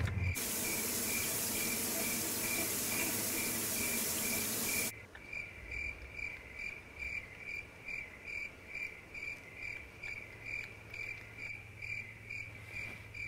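Cricket chirping, an even run of about two chirps a second, the classic "crickets" of an awkward wait. For the first five seconds a loud rushing hiss lies over it and cuts off suddenly.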